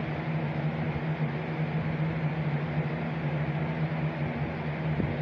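Steady machine hum: one constant low tone under an even hiss, unchanging throughout.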